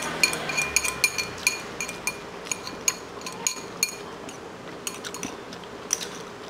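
Metal chopsticks clinking against a ceramic bowl as noodles are stirred and picked up: a quick, irregular run of light ringing clicks that thins out after about four seconds.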